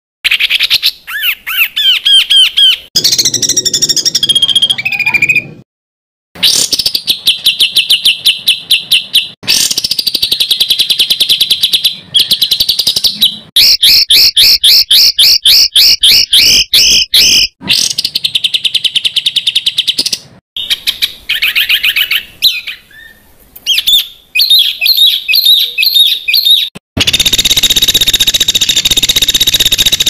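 Songbirds singing dense, harsh, rapid-fire phrases: runs of quick repeated high notes, several per second, some falling in pitch, spliced one after another with sudden short silences between them.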